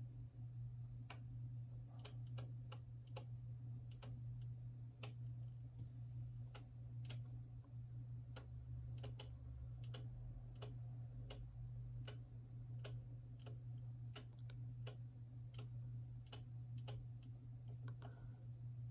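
Car turn indicator ticking faintly, a few clicks a second, over a steady low hum.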